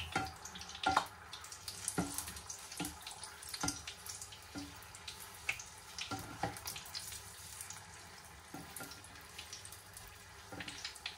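Battered prawns deep-frying in hot sunflower oil: a sizzle with irregular crackles and pops, along with occasional light knocks of a spatula in the pan.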